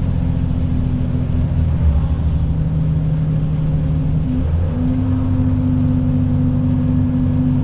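Truck's diesel engine running steadily, heard from inside the cab as it descends a steep grade, held at about 2000 rpm. Its tone changes briefly a little over four seconds in.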